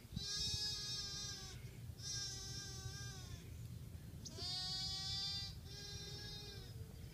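A newborn black lamb bleating four times, each bleat about a second long and holding a steady pitch. The last two come almost back to back. A low rumble runs underneath.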